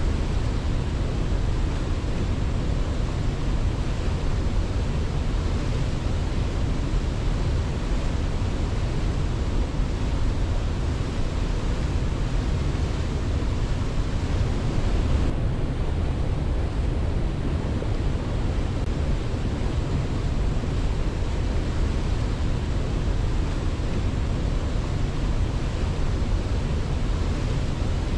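Steady rushing water of a waterfall: an even, unbroken roar, heaviest in the low end, with the highest hiss dimming slightly about fifteen seconds in. No birdsong stands out.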